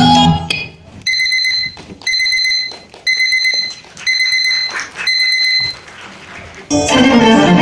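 Electronic alarm beeping five times, about one beep a second, each a steady high tone lasting under a second, played as a sound effect over the hall's sound system. Music starts again near the end.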